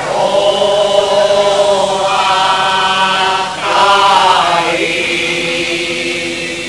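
A Cádiz carnival chirigota chorus singing long held notes in harmony. Two drawn-out chords, the second starting just past halfway and fading out near the end.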